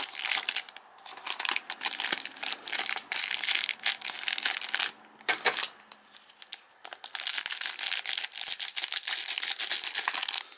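Plastic wrapping of a sealed hockey-card pack being torn open and crinkled by hand, in bursts of crackling with a short pause partway through.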